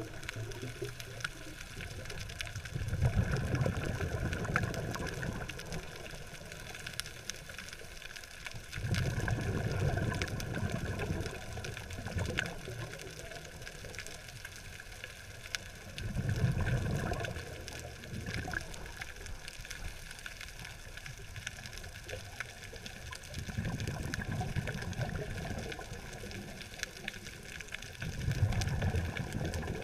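Scuba diver's exhaled bubbles gurgling out of the regulator underwater, in five surges about six seconds apart, one per breath. A faint steady crackle of clicks runs underneath.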